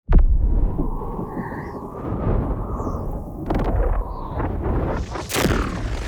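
Layered designed sound effects: a sudden low boom breaks out of silence into a dense, rumbling low roar, with small chirping blips and sharp hits over it and a bright whoosh near the end.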